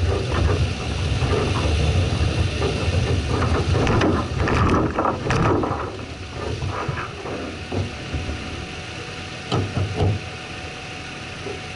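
Off-road 4x4's engine running at low revs as it drives over a rough, rutted field, with clattering knocks and rattles from the body jolting over bumps about four to five seconds in and again near the end. The engine is louder in the first half and eases off after about six seconds.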